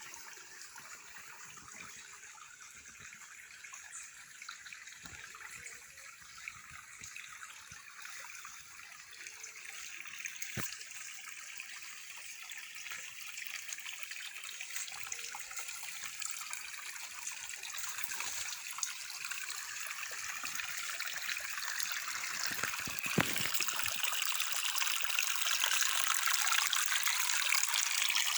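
Running water trickling and splashing, growing steadily louder.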